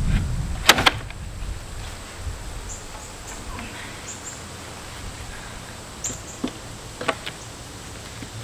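Pallet boards being pried off with a pallet buster: two sharp cracks of wood and nails about a second in, then a few lighter knocks and clicks later on.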